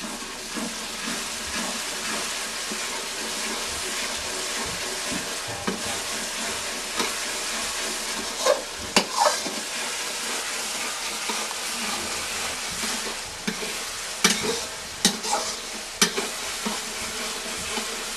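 Masala sizzling as it fries in a kadhai over a coal stove, stirred with a metal ladle. The ladle scrapes and clinks sharply against the pan a few times about halfway through and again near the end.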